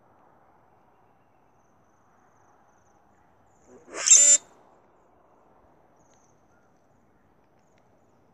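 A single short song of a male common grackle, about half a second long near the middle: a brief low note running into a loud, high, squeaky screech.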